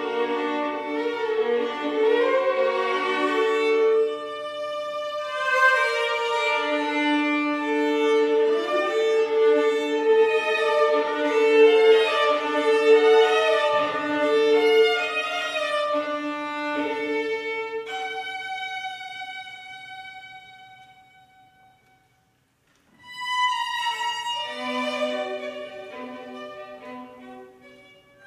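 String quartet playing slow, long-held chords. The sound fades away to a moment of silence a little past the middle, then the strings come back in.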